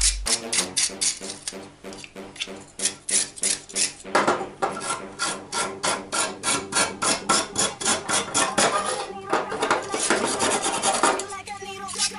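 Hand-held steel wire brush scrubbing rust off the oil lamp's thin wire guard, in quick repeated back-and-forth strokes, several a second.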